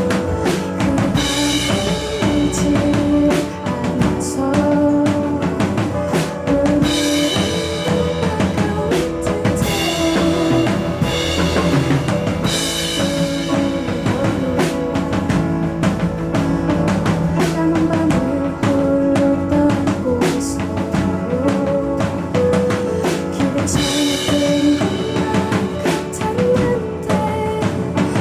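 Live band playing an instrumental passage of a song: a drum kit with bass drum and snare keeps a steady beat under sustained melodic lines.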